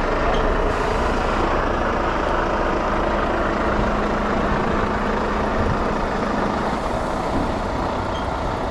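Articulated lorry's diesel engine running steadily as the truck reverses slowly.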